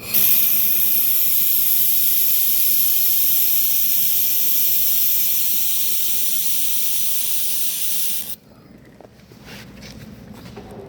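Welding torch working aluminium, giving a steady, loud hiss that starts suddenly, holds for about eight seconds and cuts off abruptly.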